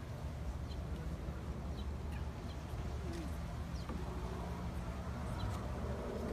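Small birds chirping with short high calls, and a dove cooing once about three seconds in, over a steady low hum.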